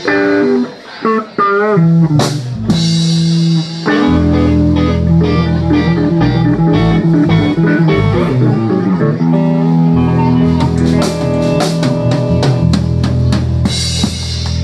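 Live blues band: electric guitar playing wavering, bent notes over sparse backing, then about four seconds in the full band comes in with drum kit and bass guitar under the guitars, with busy drum and cymbal hits near the end.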